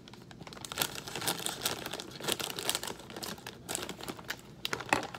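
Crinkly plastic snack bag rustling as scissors cut across its top to open it, a run of short crackles.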